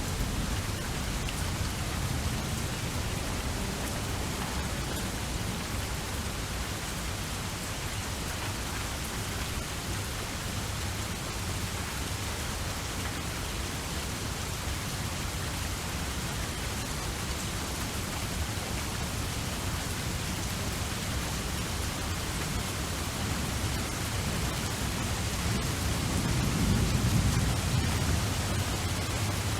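Steady rain, an even hiss of falling drops, with a low rumble of thunder swelling near the end.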